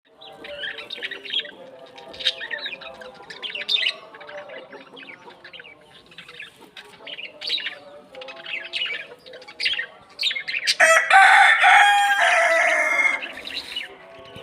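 Chicks peeping in quick high chirps over hens clucking low. About eleven seconds in, a chicken gives one loud, drawn-out call lasting about two seconds.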